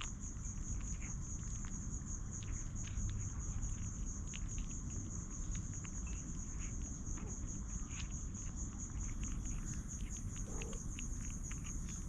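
An insect trilling steadily as a fast, even, high-pitched pulse, over a low rumble, with scattered small clicks and rustles.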